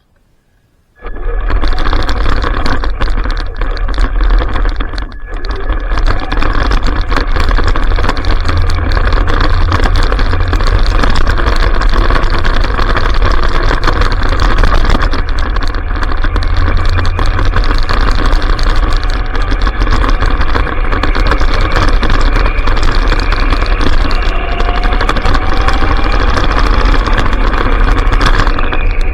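Traxxas Stampede RC truck driving, heard through a camera sealed in a waterproof case on its bed: a loud, steady rumble of jolting and motor noise that cuts in about a second in.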